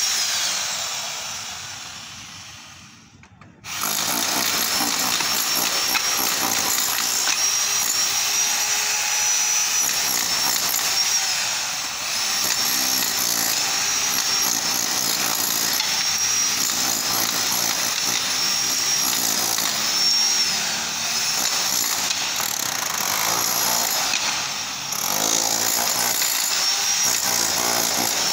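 Handheld electric demolition hammer chipping plaster off a brick wall, its motor whining over the hammering. The sound fades away over the first few seconds, starts again abruptly at about four seconds in, and then runs steadily with a few brief dips.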